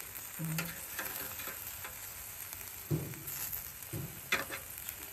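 Meat and skewers sizzling on an electric grill: a steady frying hiss, with a few sharp clicks of metal tongs against the grill rack as the meat is turned.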